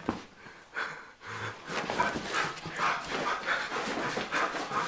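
Pit bull panting in quick, even breaths, about three a second, starting about a second and a half in; the dog is out of breath from running play.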